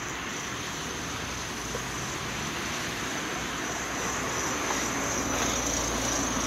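Steady rushing ambient noise with no distinct events, growing a little louder toward the end.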